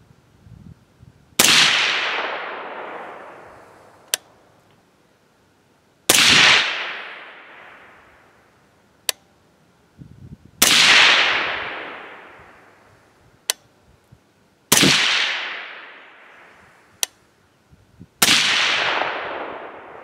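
Five shots from a suppressed 300 Blackout AR-style rifle firing 125-grain SST handloads, spaced about four seconds apart. Each shot is followed by a long echo dying away over two to three seconds, and a short sharp click sounds between shots.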